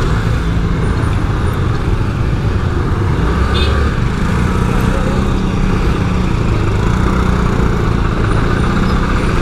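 Small single-cylinder Honda Dio scooter engine running at low speed in slow, crowded traffic, a steady low drone mixed with the engines of surrounding motorbikes and cars.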